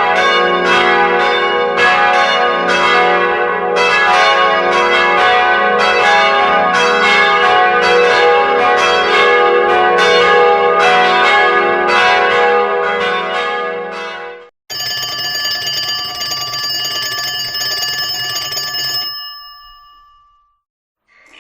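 Bells ringing in a loud, rapid, repeating peal that stops abruptly about fourteen seconds in. A different, steadier ringing tone then sounds for about four seconds and fades away.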